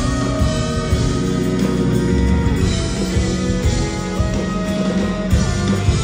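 Live band playing an instrumental passage of a rock song without singing: acoustic guitar, bass guitar, keyboard and drum kit.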